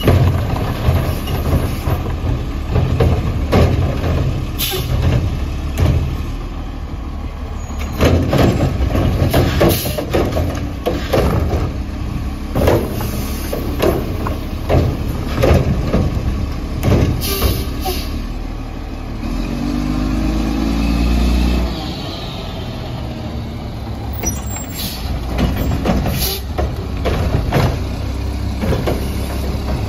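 Mack LE garbage truck with a McNeilus Atlantic front-loader body and Curotto-Can arm tipping residential carts. Its diesel engine runs and revs up for the hydraulics, with repeated bangs as the carts are dumped and knocked against the hopper and short air-brake hisses.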